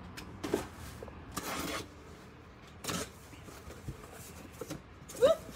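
Cardboard shipping box being opened by hand: flaps pulled apart and cardboard rubbing and scraping in several short bursts, with a few light clicks.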